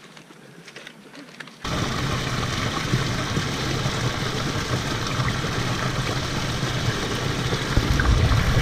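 Small waterfall spilling over a boulder into a rocky pool: a loud, steady rush and splash of water that starts suddenly about a second and a half in.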